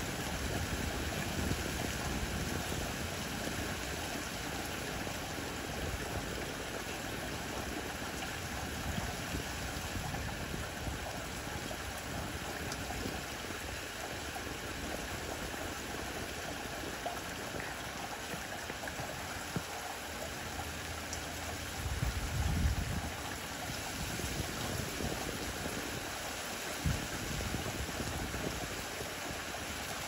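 Steady hiss of rain falling on leaves, with a brief low rumble about two-thirds of the way through.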